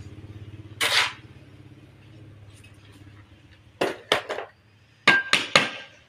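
Hard objects knocking and clinking on ceramic floor tiles: one short scrape about a second in, then two quick groups of three sharp strikes, the last group with a brief ringing clink. A low steady hum under the first half fades out about halfway.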